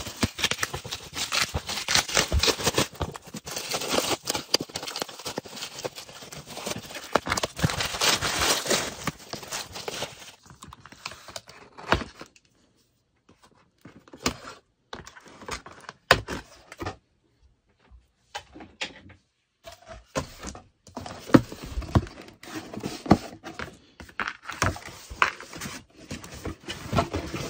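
Plastic stretch wrap crinkling as it is pulled off a cardboard box, dense for about the first ten seconds. Then scattered snips, knocks and rustles as scissors cut the packing tape and the box flaps and polystyrene sheet are handled.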